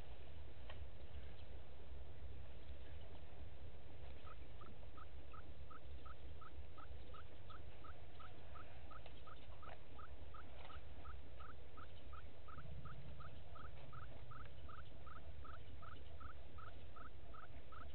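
An animal calling in a steady series of short, rising notes, about three a second, starting about four seconds in, over a constant low hum.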